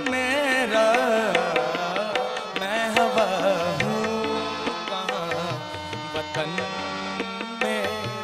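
Ghazal sung live: a man's voice in wavering, ornamented runs with no clear words, over harmonium and tabla accompaniment. The voice is strongest in the first half; after that the harmonium and tabla carry on.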